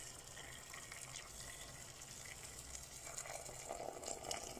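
Boiling water poured in a steady stream into an aluminium pressure cooker, splashing onto onions, chickpeas and spices in the pot.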